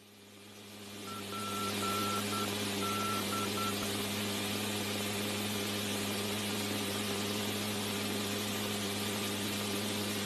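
Steady drone of aircraft engines and rushing air, heard from on board an aircraft in flight, with a constant hum; it fades in over the first two seconds. A brief string of short and long beeps sounds in the first few seconds.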